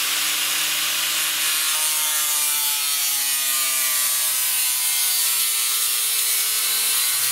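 Angle grinder spinning a cardboard cutting disc into a thin wooden strip, a steady motor whine over a hissing, rubbing friction noise. The disc cuts by friction heat rather than teeth, and the motor's pitch sags slowly as the disc bears into the wood.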